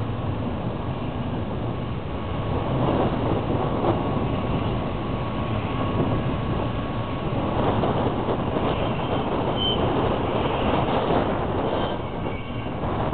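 Freight train's railcars rolling past on the rails: a steady rumble and rattle, louder through the middle and easing near the end.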